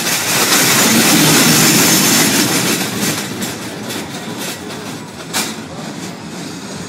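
A small roller coaster train rolls past on its steel track, its wheels rumbling and clattering. The sound swells to its loudest about one to two seconds in, then fades, with a sharp clack about five seconds in.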